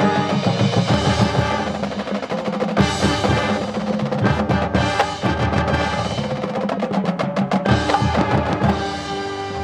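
Marching band playing: the percussion section beats out fast rhythmic strikes on drums and other percussion over held brass and low chords.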